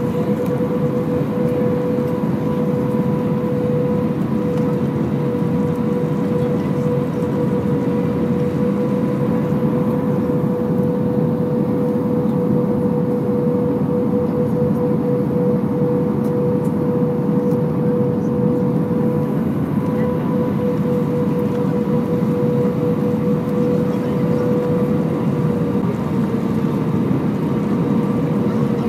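Airbus A320 cabin noise heard from a window seat over the wing during the landing approach: a steady rush of airflow and engine noise with a held hum-like tone, which drops slightly in pitch near the end.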